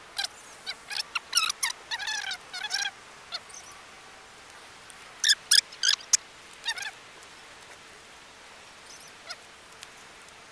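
Birds chirping: a rapid run of short, high squeaky calls over the first three seconds, another cluster a little after five seconds, then only faint background.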